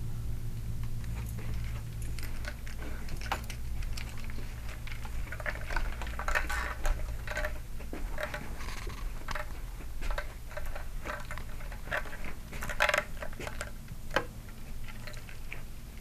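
Someone walking with a handheld camera through a door: irregular small clicks, knocks and rustles of handling and footsteps, thickest about six seconds in and again near thirteen seconds. Under it runs a steady low electrical hum.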